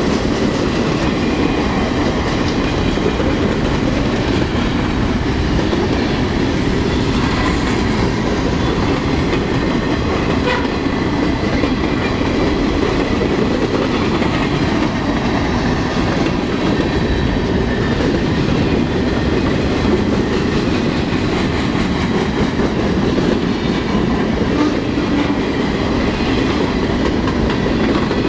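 Freight cars of a passing manifest train rolling by on the rails: a steady, loud noise of steel wheels on track that does not let up.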